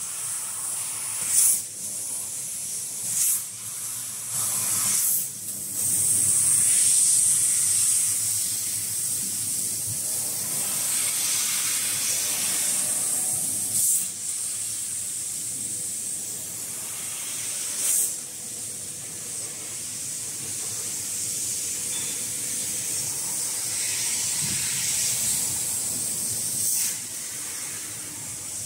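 CNC laser cutter cutting sheet metal: a steady high hiss from the cutting head's assist-gas jet, with several brief, sharp louder bursts at irregular intervals.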